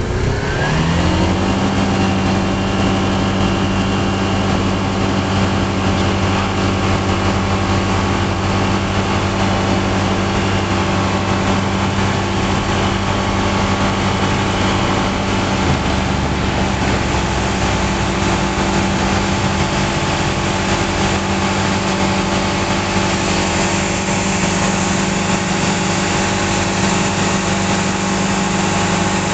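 Diamond DV20 Katana's Rotax 912 four-cylinder engine and propeller, heard from inside the cockpit, opening up to full take-off power within the first second with a quick rise in pitch. It then runs steadily at full power through the take-off roll and lift-off, over a constant rush of air and propeller noise.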